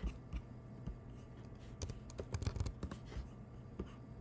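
Typing on a computer keyboard: a few short, scattered bursts of keystrokes.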